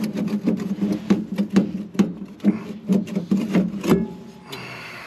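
Irregular metallic clicks and clanks over a steady low hum as a furnace's draft inducer motor assembly and its vent pipe are worked loose by hand. The clicking stops about four seconds in, leaving a quieter steady hiss.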